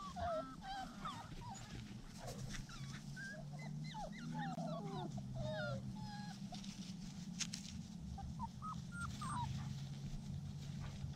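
Standard schnauzer puppies whining and squealing in many short, high calls that bend in pitch, dense at first and sparser in the second half. A steady low hum runs underneath.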